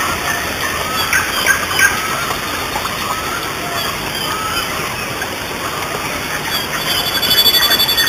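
Steady rush of water from a jungle stream and waterfall, with short bird chirps scattered over it. Near the end a high, pulsing buzz comes in at about five pulses a second.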